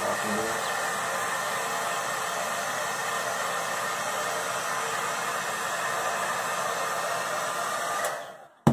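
Hand-held hair dryer blowing steadily, then switched off about eight seconds in, its whoosh dying away over half a second, followed by a single sharp click.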